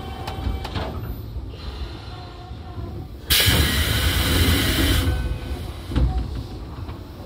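Inside a Toei 5300 series subway car: a couple of light clicks near the start, then a loud hiss of compressed air that lasts about a second and a half, followed by a single thump about a second later.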